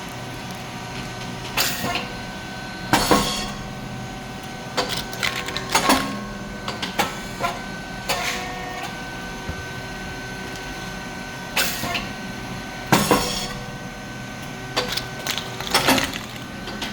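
SYP4509 rice cake popping machine with titanium-coated moulds running through its cycle: the steady hum of its hydraulic pump motor, and about every ten seconds a loud pop with a short hiss as the heated moulds open and a batch of nine rice cakes puffs, followed by lighter mechanical clacks of the moulds and the feeding plate. The loud pop comes twice, about ten seconds apart.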